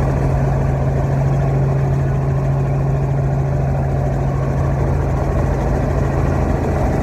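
Robinson R44 Raven II helicopter in flight, its six-cylinder piston engine and rotors making a loud, steady drone with a low hum, heard from inside the cabin.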